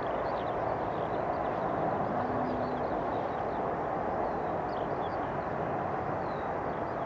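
Jet engine noise from an Airbus A320-232's twin IAE V2500 turbofans as the airliner rolls out on the runway after touchdown: a steady rushing roar that eases slightly near the end. Small birds chirp faintly above it.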